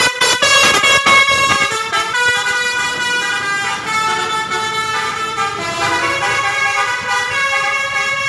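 Bus 'telolet' multi-tone musical air horn (Basuri type) playing a tune. A quick run of short toots comes first, then held chords of several horn notes that step to new pitches every second or so.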